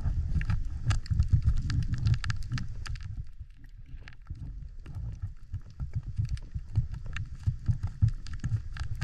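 Underwater ambience picked up by a diving camera: a muffled low water rumble with frequent sharp clicks and crackles. It dips quieter about three seconds in, then picks up again.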